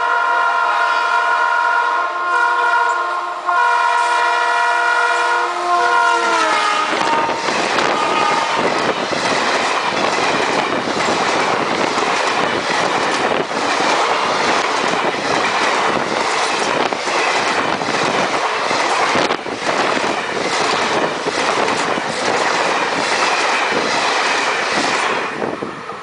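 Multi-tone horn of a WDM-3A diesel-electric locomotive sounding one long blast. Its pitch drops about seven seconds in as the locomotive passes. The coaches of the express then rush past with their wheels clattering steadily over rail joints, dying away near the end.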